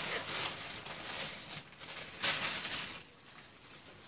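Pink tissue paper rustling and crinkling as it is peeled off and lifted out of a cardboard box, with a louder crinkle about two seconds in and fainter handling near the end.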